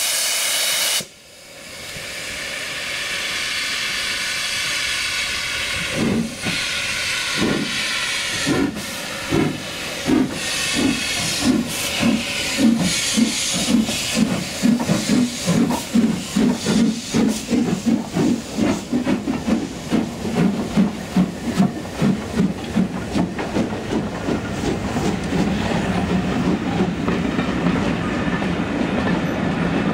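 Two steam locomotives, an S&DJR 7F 2-8-0 and a BR Standard Class 5 4-6-0, double-heading a train away from a stand: a brief whistle at the very start, then hissing steam from the open cylinder drain cocks. The exhaust beats start slow and quicken steadily to several a second, and the coaches roll past near the end.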